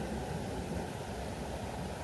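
Steady, even rushing noise of water, with no distinct events.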